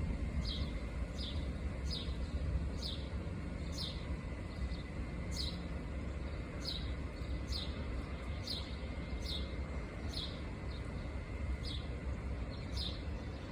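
A bird repeating a short, high, downward-sliding call note about once every 0.7 seconds, over a steady low rumble.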